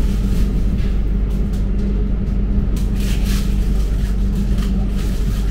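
Passenger train running, heard from inside the carriage: a steady low rumble with a steady hum and scattered light clicks and rattles.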